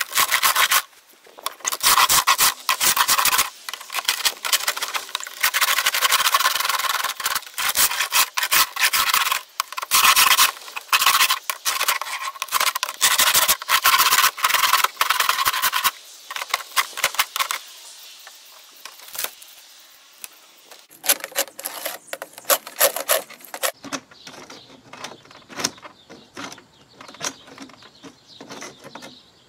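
Hand scraper scraping old crumbly putty off a wooden multi-pane window sash, in quick back-and-forth strokes. The strokes run fast and dense for over half the time, then turn sparser and quieter.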